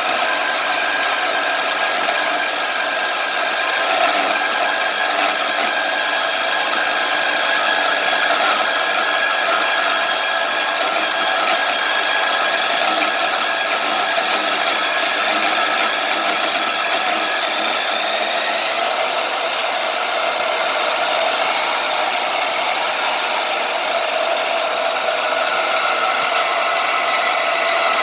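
Electric power tool running steadily under load with a high whine, cutting a piece of metal tubing in half.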